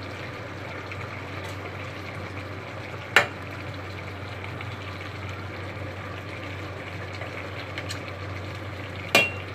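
Vegetable stew simmering in a stainless steel pot with a steady bubbling hiss. Two sharp knocks cut through it, one about three seconds in and one near the end.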